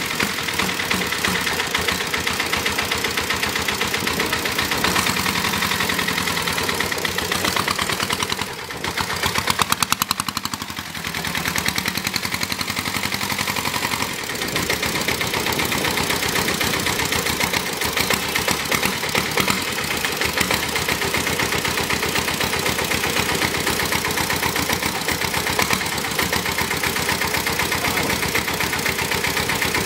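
Lombardini 325 cc air-cooled diesel engine in a converted 1973 Royal Enfield Bullet, running at idle with a steady rapid diesel knock. About nine seconds in it is briefly revved, getting louder for a couple of seconds before settling back to idle.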